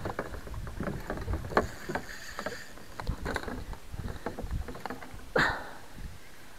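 Knocks and clatter of rod, net and gear against a plastic fishing kayak, with water sloshing, as a musky is brought to the landing net. One louder thump about five seconds in.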